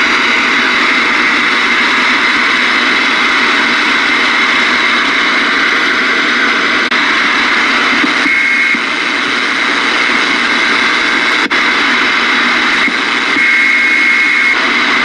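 Ranger RCI-2995DXCF radio's speaker giving off loud, steady receiver static with the squelch open while the frequency knob is turned across the band. A brief high whistle comes in a little past eight seconds, and another near the end.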